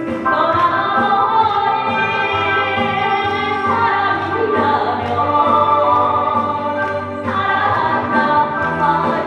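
A female trot singer singing a song in long, sustained phrases with instrumental accompaniment.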